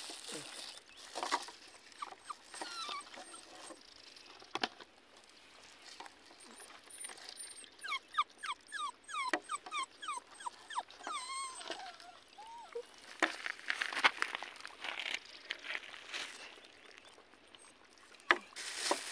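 A puppy whimpering: a quick run of short, high whines through the middle, ending in one falling whine. Scattered clicks and rustling of a plastic bag and spoon around it.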